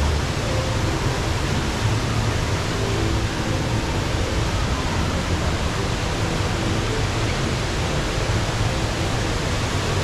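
Steady rush of the Rain Vortex, the tall indoor waterfall under the glass dome, heard as a dense, even wash of falling water.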